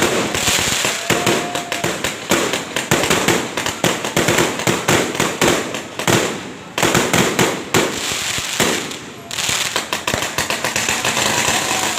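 Fireworks going off: a dense, continuous run of sharp cracks and bangs, thinning briefly about six and a half and nine seconds in.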